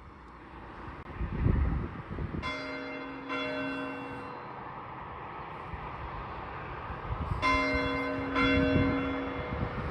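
Church bells ringing: two strikes close together about two and a half seconds in, then two more about five seconds later, each left to ring on. Low rumbles sit under the ringing, loudest about a second and a half in.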